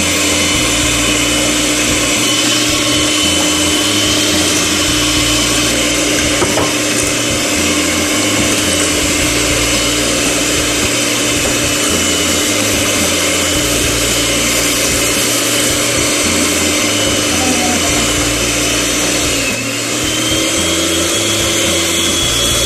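Electric hand mixer running at high speed, its beaters whipping eggs and sugar in a glass bowl into a thick, even mass; a steady motor whine. Near the end the whine dips briefly and settles back at a slightly higher pitch.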